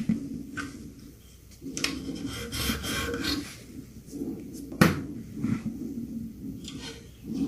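Hand tools and metal parts being worked on the scooter's wheel during reassembly: a scraping, rubbing passage, then a single sharp knock about five seconds in, with a few lighter clicks and another short rubbing at the end.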